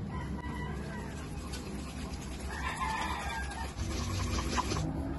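Hand wire whisk stirring a glutinous rice flour and coconut milk batter in a stainless steel bowl, scraping with scattered light clicks against the metal. A pitched animal call sounds in the background around the middle.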